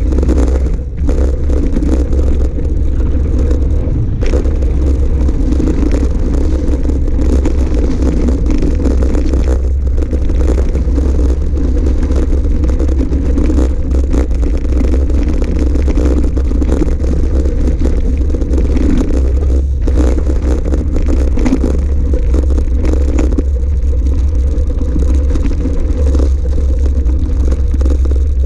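Steady wind rumble on the microphone of a camera riding on an electric mountain bike, with tyres crunching over a gravel track and small rattles and clicks from the bike throughout.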